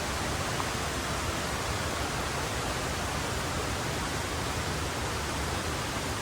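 Mountain river rushing over rocks: a steady, even roar of flowing water.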